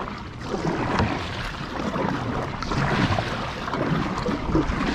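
Double-bladed kayak paddle strokes splashing through the water as a fishing kayak is paddled along, with wind rumbling on the microphone.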